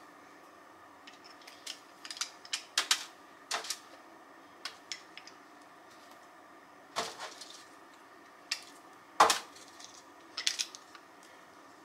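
Garlic press clicking and clacking as garlic cloves are pressed: irregular sharp clicks and taps, the loudest about seven and nine seconds in.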